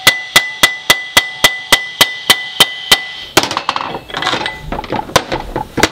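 A hammer striking steel in quick, evenly spaced blows, roughly four a second and about a dozen in all, each with a metallic ring. About three and a half seconds in the blows stop and give way to irregular clinking and scraping of loose metal parts.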